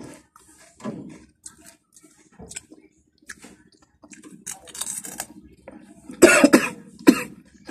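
A man coughing, set off by the heat of a spicy chilli-flavoured snack. Quieter mouth and chewing noises come first, then a loud cough about six seconds in and another about a second later.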